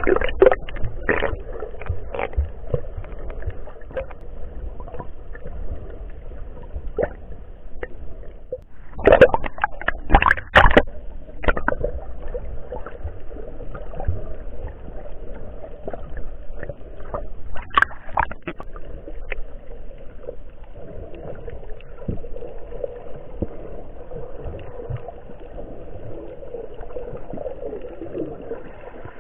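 Muffled underwater sound picked up by an action camera in its waterproof housing: sloshing and gurgling water, with clusters of louder sharp knocks and splashes at the start, about ten seconds in, and again at about eighteen seconds.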